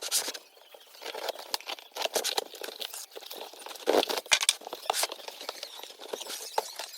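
Packaging being handled and opened: irregular scraping, tapping and crinkling of cardboard and plastic wrap, with a few sharper clicks around the middle.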